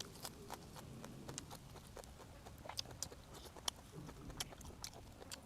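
Close-miked eating: scattered wet mouth clicks and smacks at an irregular pace while chewing.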